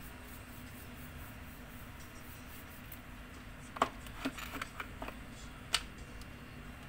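A few light clicks and taps, bunched together about four seconds in with one sharper click near the end, from a paintbrush and plastic paint jars being handled while painting, over a steady low hum.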